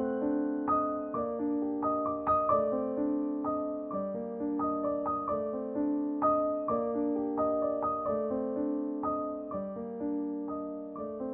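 Background piano music: a flowing line of struck notes, each ringing out and fading as the next comes in.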